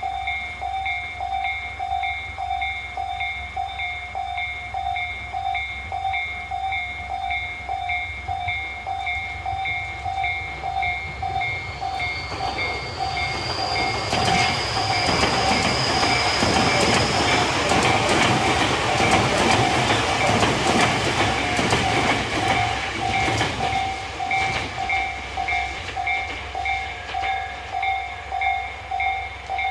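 A Japanese level-crossing warning bell rings on in a steady pulsing rhythm. About twelve seconds in, a Tobu train comes through the crossing: it builds to its loudest at around twenty seconds with its wheels clattering over rail joints, and a high whine rises as it arrives. It is gone by about twenty-five seconds while the bell keeps ringing.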